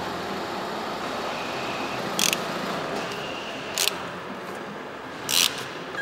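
Steady workshop background noise, with three short, sharp high-pitched noises from tools or parts being handled, about a second and a half apart; the last is the loudest.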